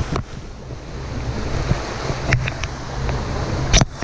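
Wind rumbling on a dog-mounted GoPro's microphone over the steady rush of a shallow creek, with a few short sharp clicks and knocks, the loudest a little before the end.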